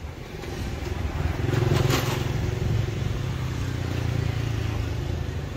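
A motor vehicle's engine running close by, getting louder over the first two seconds with a burst of hiss about two seconds in, then holding a steady hum.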